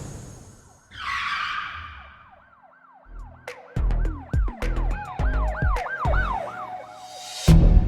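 Produced intro sound effects: a whoosh, then a fast warbling siren-like wail rising and falling about three times a second over heavy bass hits, with loud beat-driven music starting near the end.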